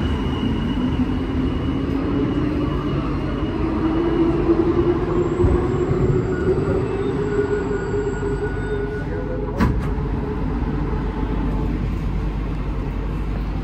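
Interior sound of an Alstom NS-93 metro train running between stations: a steady rumble with a motor whine that rises in pitch over the first eight seconds or so as the train picks up speed. A single sharp click about two-thirds of the way through.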